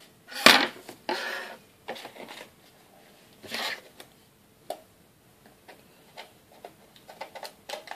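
Trading-card box packaging being handled and opened: short bursts of rustling and tearing wrapper, the loudest about half a second in, then scattered light clicks and taps.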